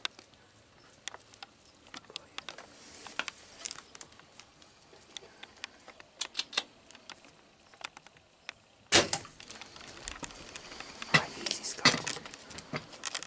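Scattered small clicks and knocks of handling inside a ground blind, with a louder burst of rustling about nine seconds in and a quick run of clicks near the end.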